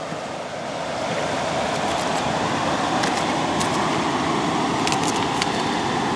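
Steady rush of flowing water, rising slightly in the first second and then holding even, with a few faint scattered clicks over it.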